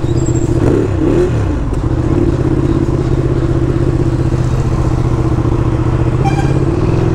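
Superbike engine with an SC-Project aftermarket exhaust running at low, steady revs as the bike rolls slowly through traffic. Its pitch dips and rises briefly about a second in.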